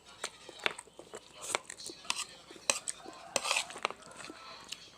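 Close-up mukbang eating sounds over a plate of leftover chicken pieces and bones: scattered sharp clicks and clinks against the dish, with a short rustling burst about three and a half seconds in.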